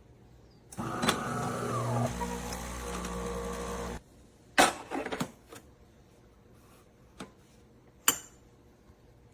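Automatic espresso machine's electric motor running for about three seconds, changing pitch about halfway through, then cutting off abruptly, followed by a few sharp clicks and knocks.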